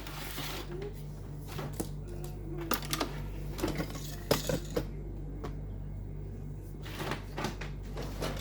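Small hard toys clicking and clattering as they are handled and set down, in scattered knocks over a steady low hum.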